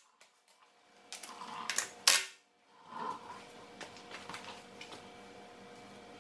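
A few sharp metallic clicks and a louder clunk just after two seconds in, from tools being worked at the wheel's lug nuts, then a faint steady hum.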